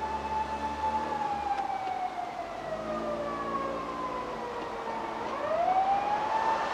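Siren of a 200-series Toyota Crown police patrol car on an emergency run: a wailing tone that holds high, slowly falls over about four seconds, then rises back up near the end. A low steady traffic rumble lies underneath.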